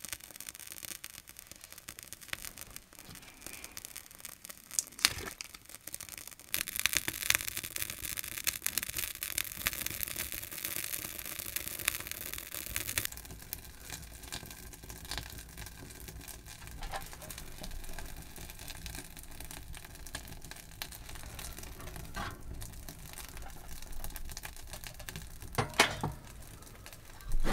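Birch bark and split kindling catching and crackling in a small steel box stove, with a brighter rush of crackling flame for several seconds as the fire takes hold, then a steadier crackle. Near the end, a couple of sharp knocks as the stove door is handled.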